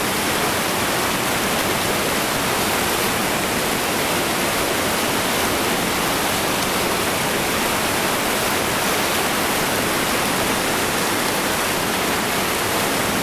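Whitewater rapids rushing steadily: a constant, loud, even hiss of fast water that holds the same level throughout.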